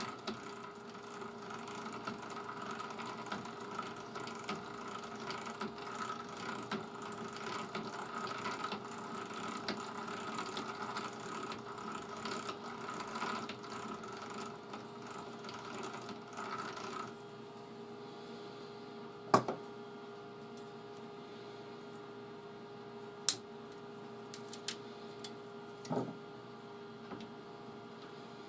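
Small motor spinning a knitting needle in a drill chuck while copper wire winds onto it as a coil, a steady hum with a rattly whirr. About 17 seconds in the whirr stops, leaving the steady hum, followed by a few sharp clicks.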